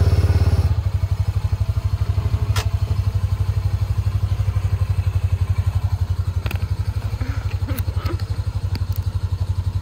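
Side-by-side UTV engine running at low trail speed with a steady, evenly pulsing low note that drops a little under a second in. A few sharp knocks and clicks sound over it.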